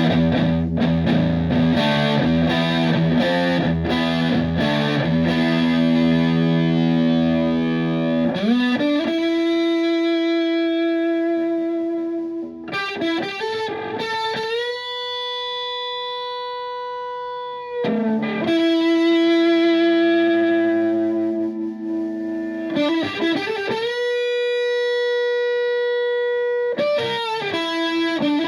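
Electric guitar through a Tone Bender MKII-style fuzz pedal and an Ampeg VT22 valve amp. It plays a riff of repeated distorted chords for about eight seconds, then long, sustained single lead notes, each bent up in pitch and held, several times over.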